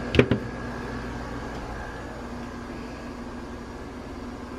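Steady background hum with a faint high whine, broken just after the start by two sharp knocks.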